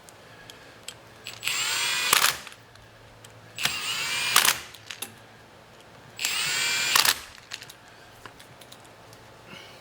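Power drill driver run in three short bursts of about a second each, its whine rising in pitch as it spins up each time, driving in the bolts that hold a power-feed mounting plate to a milling machine table.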